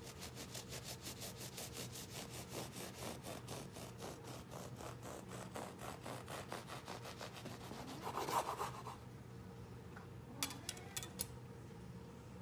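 Serrated bread knife sawing back and forth through a loaf of Japanese shokupan sandwich bread, in quick even strokes about five a second. A louder scrape comes about eight seconds in, and a few light clicks follow about two seconds later.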